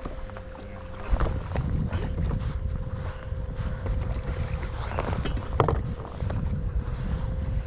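Wind rumbling on the microphone over a steady faint whine, typical of a Bixpy electric kayak motor running at trolling speed. A short sharp knock comes a little past the middle.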